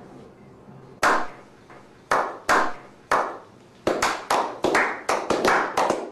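A slow clap by a small group of men: single hand claps about a second apart, building from about four seconds in into quicker, overlapping clapping.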